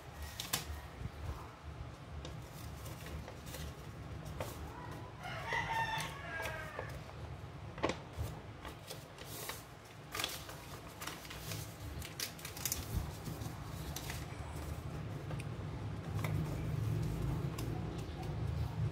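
Origami paper crackling and clicking in short bursts as a strip of paper is folded and creased by hand. A rooster crows once, about five seconds in, over a steady low hum.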